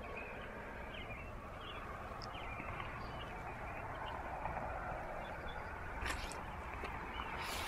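Steady rural outdoor background noise with faint, scattered high chirps in the first half, and two short rushes of hiss-like noise near the end.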